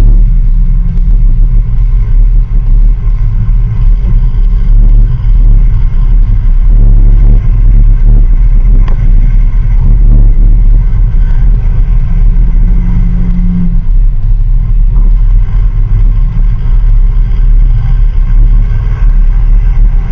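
Loud, steady rumble of wind and road noise from a trailer being towed along the road, heard on a camera mounted outside on the trailer.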